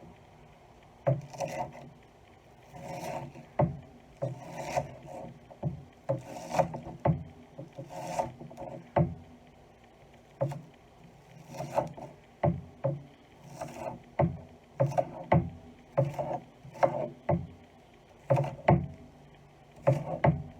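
Kitchen knife chopping an onion on a cutting board: each cut gives a short crunch as the blade goes through the onion, then a knock on the board. The cuts come about once or twice a second, unevenly spaced.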